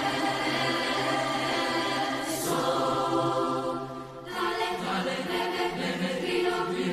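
Mixed youth choir singing sustained chords, with a short drop in volume about four seconds in before the voices come back in.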